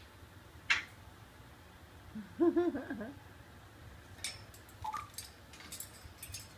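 Sharp clicks and taps of an African grey parrot's beak and feet on the bars of its cage, one under a second in and a scattered run from about four seconds on. A short, low, wavering hoot comes about two seconds in and is the loudest sound.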